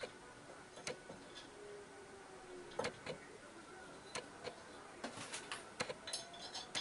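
Faint, irregular light metal clicks and knocks as a motor mounting bracket is handled and turned against the end face of an electric motor, with a quicker run of clicks near the end.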